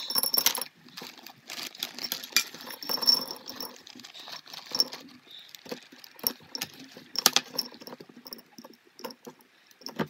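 Crushed peppermint hard candies poured from a plastic zip-top bag into a glass mason jar, the pieces clinking and rattling against the glass. After about three and a half seconds the rattle thins to scattered single clicks as pieces are dropped and pushed in by hand.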